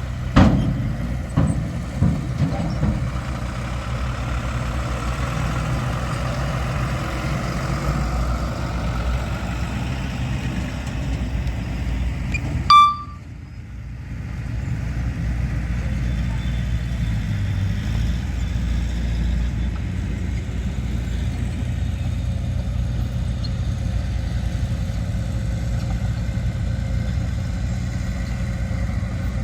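Heavy diesel earthmoving machinery running steadily, with a few knocks in the first couple of seconds. About 13 s in, a brief high tone sounds and the level drops for a moment before the engine noise returns.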